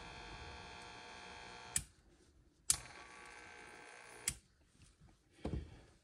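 Front-load washing machine drain pump motor running on a test cord with a steady hum. A switch click stops it nearly two seconds in. Another click about a second later starts it humming again, more faintly, until a third click stops it about a second and a half later. The pump runs, but the owner says it does not pump, since its impeller turns with no resistance.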